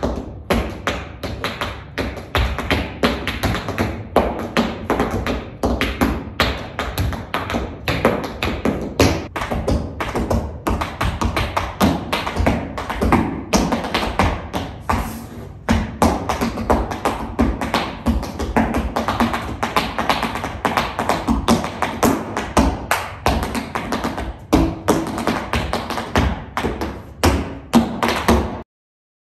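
Dance shoes striking a studio floor in fast, dense rhythms, like tap or flamenco footwork, with music underneath. It stops abruptly near the end.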